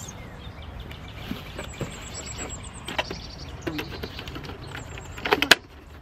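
A small cardboard box being handled while rubber bands are stretched around it to close it: light rustles and taps, then a few sharp, louder clicks just before the end.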